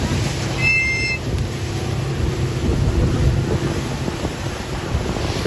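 A vehicle engine runs steadily with wind buffeting the microphone. A short high tone sounds once, about a second in.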